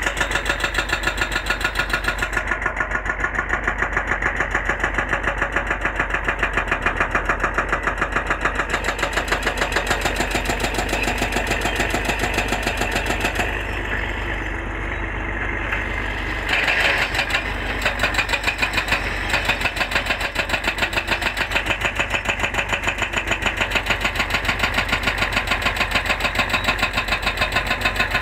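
Heavy-equipment diesel engine running steadily with a regular pulsing beat, dipping briefly about halfway through and then rising again.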